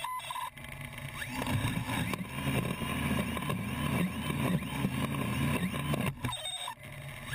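DJI F450 quadcopter's motors and propellers running on the ground, their pitch wavering up and down. They start about a second in and cut off about six seconds in.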